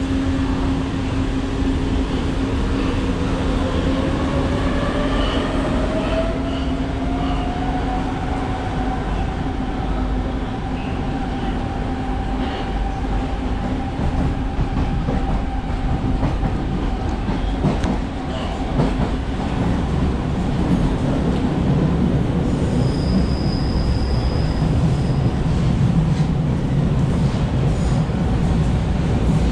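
Metro train heard from inside the car: the traction motors' whine rises in pitch as the train pulls away and gathers speed, levelling off after about eight seconds, over a steady rumble of wheels on the rails. A short high squeal from the wheels comes near the end.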